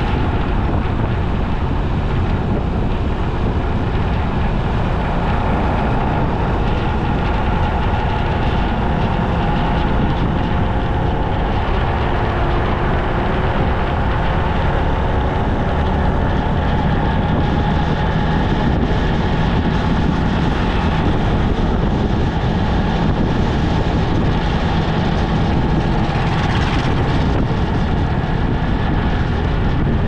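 Steady road noise from a vehicle travelling along a highway: a dense low rumble of wind on the microphone and tyres on asphalt, with a faint engine hum whose pitch drifts up and down. A brief brighter hiss rises near the end.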